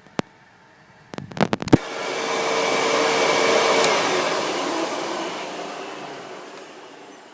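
Hoover WindTunnel upright vacuum cleaner: a few clicks, then the motor comes up to speed with a loud rushing whine. It then winds down and fades away.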